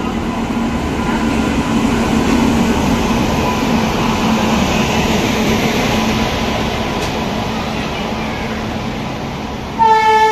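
Indian Railways WAP-7 electric locomotive and its coaches rolling slowly along a station platform: a steady running noise with a low hum. About half a second before the end, the train's horn starts a loud, steady blast.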